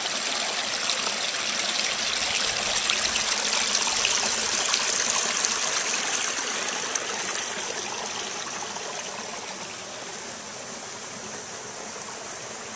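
Small rocky creek running, a steady rush of water over stones that grows fainter in the second half.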